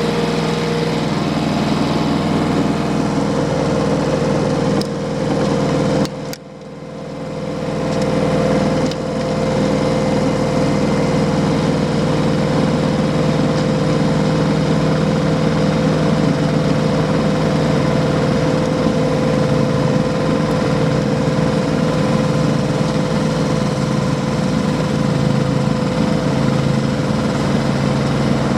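Diesel tractor engine running steadily at raised RPM, driving a rear PTO snowblower. About six seconds in the sound drops away suddenly and builds back up over about two seconds, then runs on evenly.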